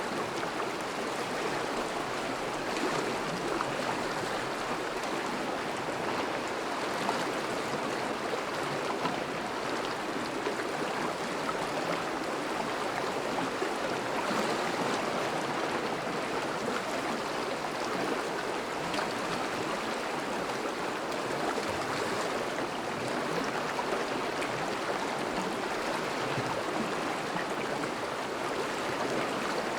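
Thawing river flowing steadily: an even, unbroken rush of moving water.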